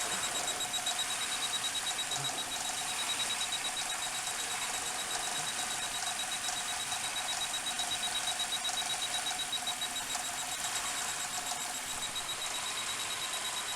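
Suzuki Grand Vitara 2.5 L V6 engine idling steadily, with a fast, even ticking from the fuel injectors, while it is being diagnosed for a misfire.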